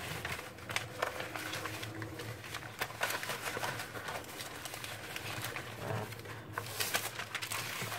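A rolled diamond-painting canvas and sheets of paper being unrolled and handled, rustling and crackling in short bursts. Faint low cooing is heard in the background, like a pigeon's.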